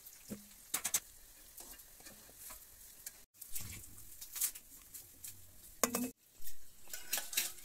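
Ghee melting in a steel pan with a faint sizzle, while metal utensils stir it and click and scrape against the pan. The sound cuts out briefly twice.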